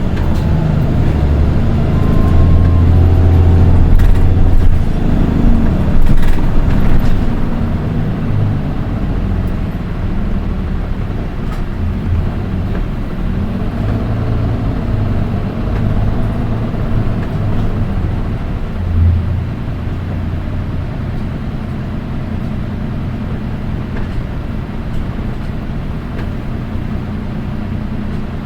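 Diesel engine of a Nissan Diesel Space Runner RM (PDG-RM820GAN) city bus heard from inside the cabin as the bus pulls away, louder through the first several seconds of acceleration, then settling into a steadier, quieter drone. This particular bus is noted for an unusually shrill engine note among its type.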